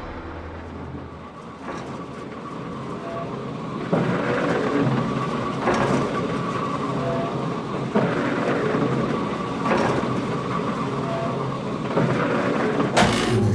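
A steady rumbling noise with a sharp knock about every two seconds.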